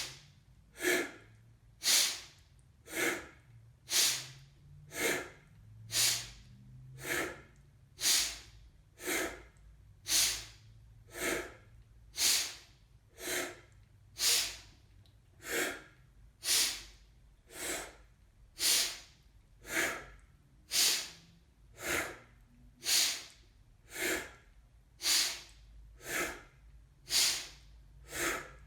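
A person doing a quick, forceful kundalini yoga pranayama breath, with a loud rush of air on each stroke at about one stroke a second.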